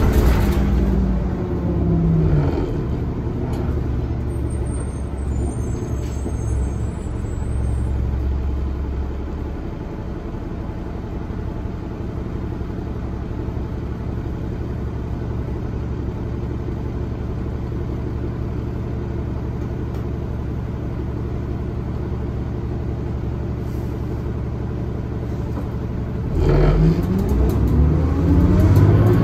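Orion VII city bus diesel engine heard from inside the cabin: the engine pitch falls away as the bus slows, then it runs at a steady low idle for about twenty seconds. Near the end the engine revs up with a rising pitch as the bus pulls away.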